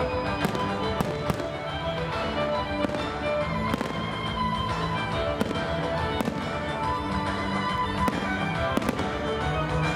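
Fireworks bursting over a steady piece of music, with several sharp bangs at irregular intervals.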